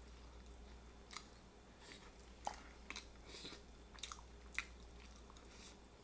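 Quiet, close-up chewing of barbecue rotisserie chicken: a string of sharp, wet mouth clicks and smacks at irregular intervals, the loudest about two and a half seconds in and again past four and a half seconds. A faint low hum lies underneath.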